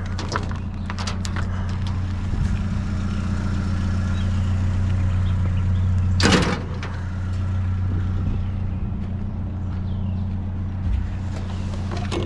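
Vehicle engine running with a steady low drone, a few clicks in the first second and a half and one short loud rustle or thump about six seconds in.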